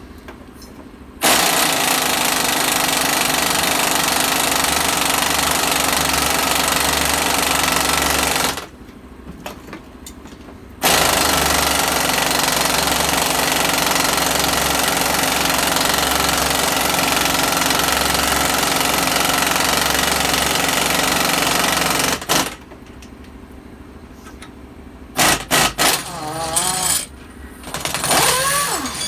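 Impact wrench hammering on a threaded pulling rod, pressing a wheel hub into a new rear wheel bearing. It runs in two long stretches of about seven and eleven seconds with a short pause between, then gives a few short bursts near the end.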